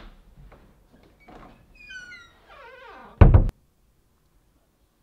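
A few short, high squeaks sliding downward, then a longer sound falling steadily in pitch, ending in a loud thud just over three seconds in that cuts off sharply.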